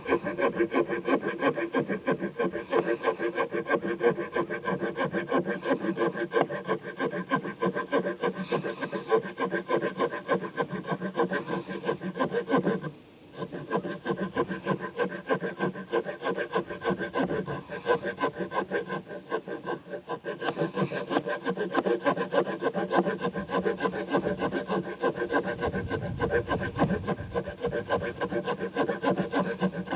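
Saw blade of a Victorinox Farmer X Alox Swiss Army knife cutting through a wooden stick with quick, steady back-and-forth strokes, stopping briefly about thirteen seconds in.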